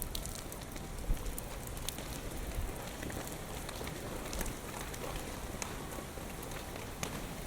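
Typhoon rain falling steadily, with scattered drops ticking close by and gusts of strong wind rumbling on the microphone, the strongest about a second in.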